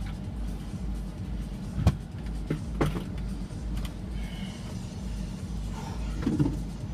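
Steady low rumble inside a semi-truck's sleeper cab, with a sharp knock about two seconds in and a lighter knock about a second later.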